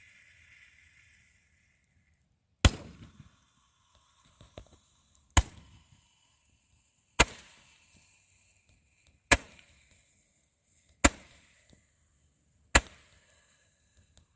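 Fireworks going off: a faint hiss that dies out about a second in, then six sharp bangs, one every two seconds or so, each trailing off briefly.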